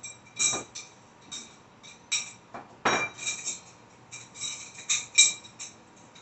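Threaded metal tube sections of a dish drying rack frame clinking and knocking against each other as they are handled and sorted, about a dozen sharp ringing clinks, the loudest about half a second in and about three seconds in.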